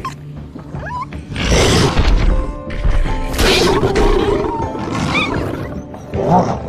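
Roaring growls from a large beast, most likely a mythical snow lion, in two loud bursts about a second long each, over dramatic background music.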